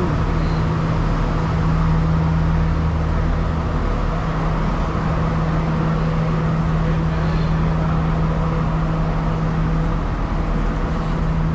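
Stationary diesel train idling at the platform: a steady engine hum with a constant low drone that does not change.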